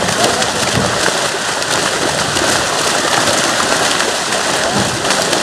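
A mass of large fish thrashing and leaping inside a seine net hauled through shallow water: continuous, dense splashing and churning, with many small slaps crackling through it.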